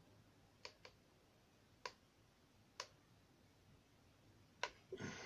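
About five faint, scattered clicks as a hot glue gun and small craft parts are handled, then a brief louder rustle near the end.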